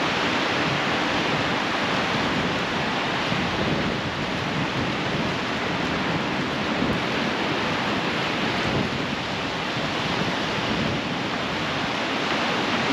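Ocean surf breaking and washing up the beach, a steady rush of waves.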